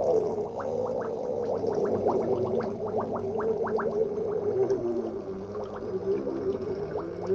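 A long fart released underwater in bath water: a continuous bubbling gurgle with many quick, rising bubble pops.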